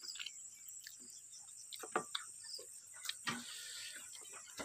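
Faint, scattered clicks and light knocks of spoons, hands and plates as people eat from dishes on the floor, over a steady high-pitched insect drone.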